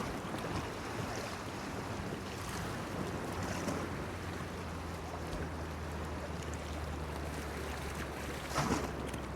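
Small waves washing and lapping against a breakwater pier, with a steady low hum underneath and one louder splash near the end.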